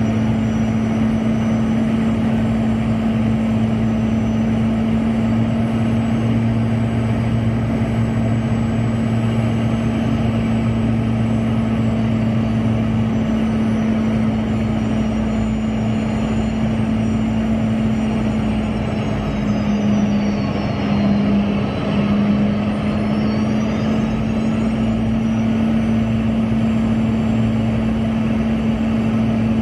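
Boeing 717's Rolls-Royce BR715 turbofans running: a steady low hum with high whining tones on top. The whine falls and then climbs back about twenty seconds in.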